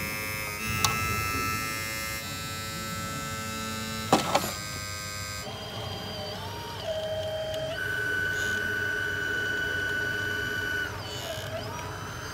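Small electric motors of radio-controlled model machines, a skip-loader truck and a wheel loader, whining steadily, their pitch stepping up and down several times as the machines are worked. Sharp knocks sound about a second in and a double knock about four seconds in.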